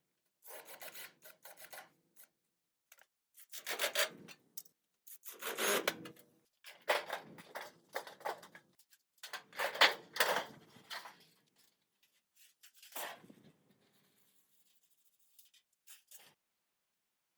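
Scraping strokes in irregular bursts, each about a second long with short pauses between, dying away near the end.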